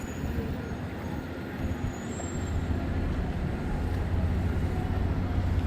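Low, steady engine rumble of a boat manoeuvring astern, growing a little louder about two seconds in.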